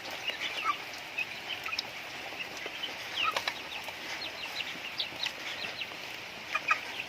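Chickens clucking and chirping in many short, scattered high calls, over the steady hiss of rain.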